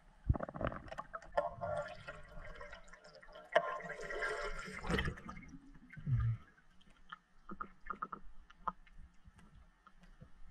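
Water gurgling and splashing around a spearfisher's camera as it moves through and up to the lake surface. After about five seconds it thins to scattered small splashes and drips, with one low thump near the middle.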